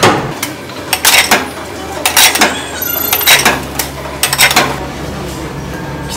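Ceramic sushi plates dropped one after another into a Kura Sushi table's plate-return slot, each landing with a sharp clatter, about five in a row roughly a second apart; every plate returned counts toward a Bikkura-pon prize game.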